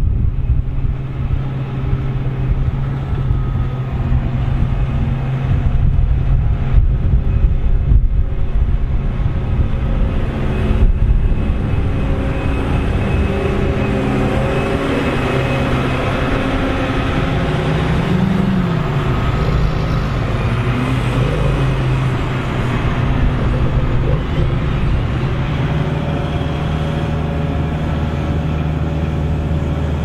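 John Deere self-propelled forage harvester running under load while harvesting maize: a steady, loud engine drone with a constant low hum. A little past halfway the engine pitch briefly rises and falls.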